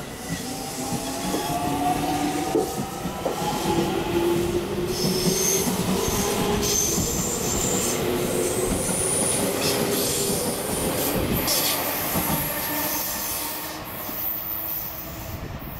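JR Central 313 series electric train pulling out and accelerating past, its inverter-driven traction motors giving a whine that climbs in pitch as it gathers speed, over wheel-on-rail running noise with occasional knocks. The sound builds, then fades near the end as the train draws away.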